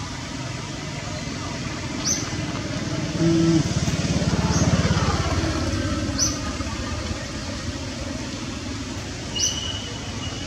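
A motor vehicle's engine passes close by. It grows loudest about four to five seconds in and falls in pitch as it goes, over a steady hiss. Short high chirps come every few seconds.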